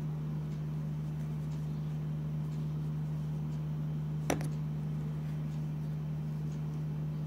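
A steady low hum, with one sharp click a little after four seconds in.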